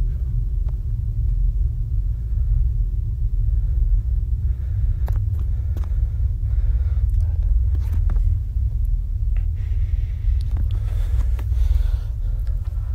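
Camera handling noise: a steady low rumble with scattered clicks and knocks as the camera is moved about.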